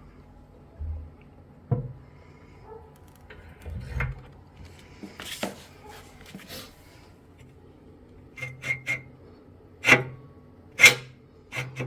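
Handling noises: scattered clicks and knocks with a stretch of rubbing, two sharper knocks near the end, and a few short high squeaks.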